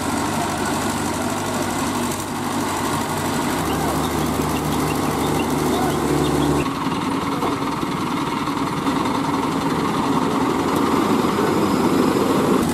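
Diesel engine of a mobile crane running steadily, with a low hum that shifts abruptly about halfway through.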